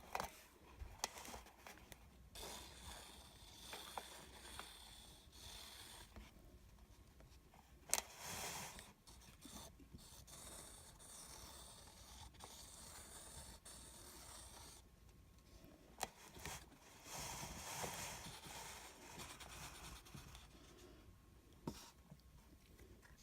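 Faint scraping and rubbing as white acrylic paint is spread over a canvas, with a few sharp clicks.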